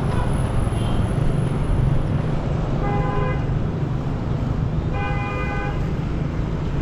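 A vehicle horn honks twice, short blasts about two seconds apart, each a steady bright tone, over a steady low rumble of street traffic.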